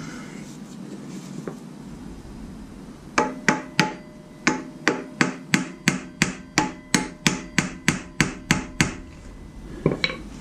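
A hammer taps a harmonic balancer (crankshaft damper) onto the crankshaft nose of a Jeep 4.0 inline-six to seat it: about seventeen sharp, ringing strikes at roughly three a second, starting about three seconds in, then two more strikes near the end.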